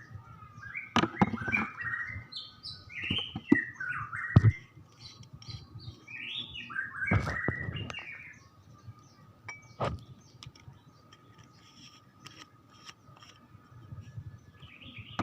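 Small bird chirping in several short bursts of quick, high, sweeping calls, with scattered sharp clicks in between.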